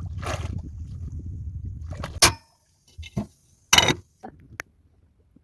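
Low rumbling noise of wind and water at sea, which cuts off abruptly with a sharp click about two seconds in; a few short, sharp noises follow, separated by silence.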